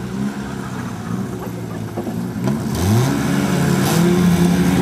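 Several old demolition derby car engines idling and revving, overlapping; about two and a half seconds in, one revs up and the sound gets louder.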